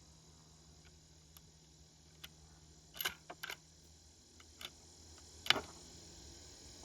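Sharp metallic clicks from the bolt of a Savage Axis II bolt-action rifle being worked between shots: a few faint ticks, a quick cluster of clicks about three seconds in, and a louder single click about five and a half seconds in.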